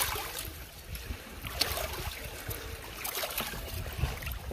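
Shallow seawater trickling and lapping over rocks, under a low rumble, with a few faint clicks.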